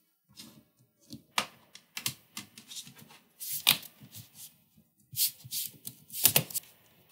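Lenovo P52 laptop's plastic keyboard and palm-rest parts being pressed by hand and clicking into place: irregular light clicks and snaps, with denser clusters midway and again near the end.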